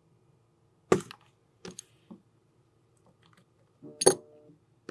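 Sharp clicks and taps of small tools and camera parts being handled during camera repair. There is a loud click about a second in, two lighter clicks soon after, and another loud click near the end with a brief ring.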